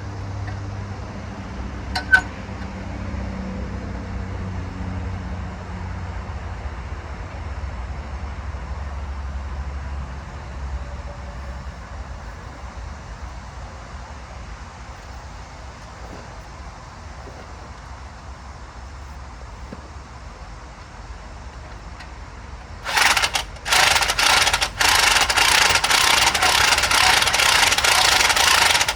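A loud power tool, most likely an impact wrench. It runs in a few short bursts and then steadily for about four seconds near the end. Before that there is a faint low rumble and a single sharp click.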